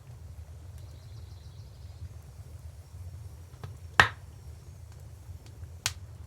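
Wood fire crackling: two sharp pops, the louder about four seconds in and another near the end, with a few fainter snaps over a steady low rumble.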